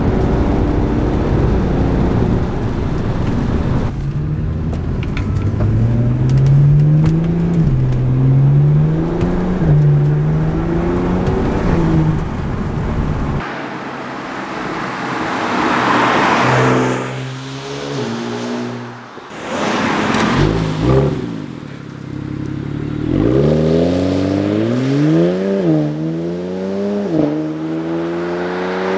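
BMW 335is twin-turbo N54 inline-six on its stock exhaust, accelerating through the gears: the engine note climbs and drops back at each quick dual-clutch upshift, several times. Between the pulls the engine tone gives way to rushing road and wind noise.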